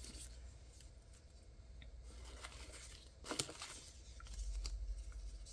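Thin plastic sticker and PET tape sample strips rustling and crinkling as they are leafed through by hand, with a sharper crinkle about three seconds in and a low rumble near the end.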